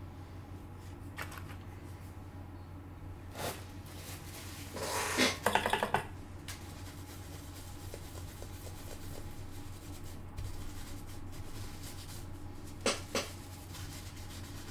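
Small clicks and a brief clattering rattle of tools and parts being handled on an electronics repair bench, loudest about five to six seconds in, over a steady low hum.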